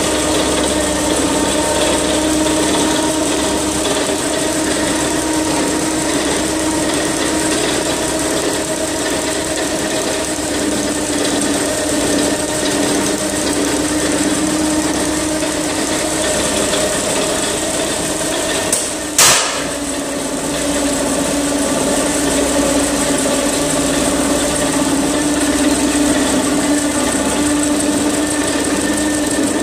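Twin-cylinder Gardner petrol engine running steadily, driving an air compressor that builds up air pressure for a lighthouse fog horn. A short, loud burst of noise cuts in once, about nineteen seconds in.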